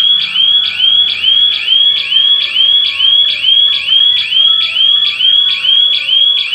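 Electronic burglar-alarm siren sounding in its triggered state: a shrill rising whoop repeated evenly a little over twice a second.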